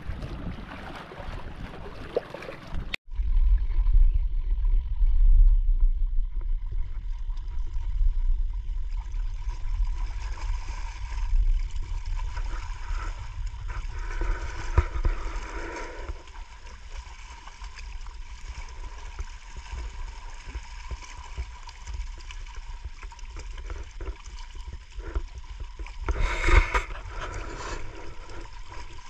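Sea water lapping and gurgling against shore rocks, with wind rumbling on the microphone. A brief louder rush of noise comes about three seconds before the end.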